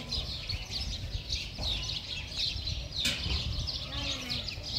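Many small birds chirping continuously in quick, overlapping calls, over a low rumble, with one sharp click about three seconds in.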